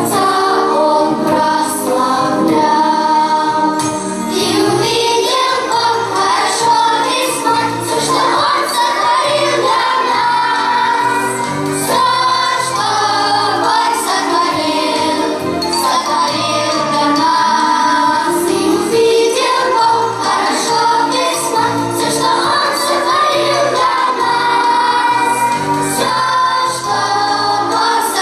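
Music: a song sung by several voices over a steady percussion beat.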